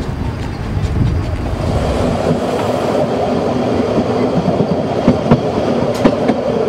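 Narrow-gauge steam-hauled train running along the track, heard from on board: a low rumble for the first couple of seconds, then the wheels clattering steadily on the rails with a few sharp clicks in the second half.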